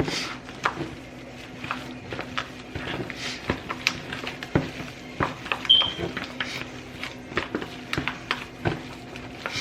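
A spatula stirring a wet dressing mixture in a bowl, with irregular scrapes, clicks and knocks against the bowl and a brief squeak a little past the middle. A faint steady hum runs underneath.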